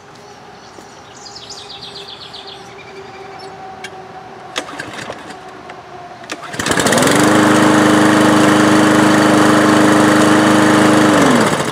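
Craftsman M260 push mower's single-cylinder four-stroke engine, pull-started: it catches about six and a half seconds in and runs steadily for a little under five seconds. Near the end it winds down fast with a falling pitch, the flywheel brake and ignition ground stopping it as the safety bail is let go, a sign that the new brake cable works.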